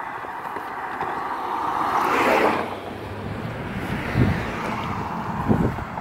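A car drives past on asphalt, its tyre and engine noise swelling to a peak about two seconds in and then fading away. A couple of low thumps follow near the end.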